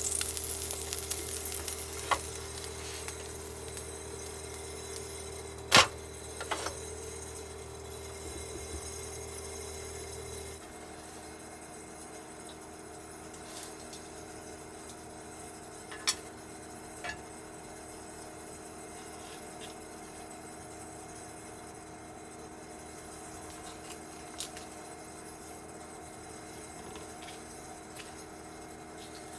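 Quiet cooking and handling sounds: a brief sizzle as a pancake is lifted off an electric hot plate with chopsticks, then a few sharp clicks of chopsticks and a knife against the hot plate and a wooden cutting board, the loudest about six seconds in, over a steady low hum.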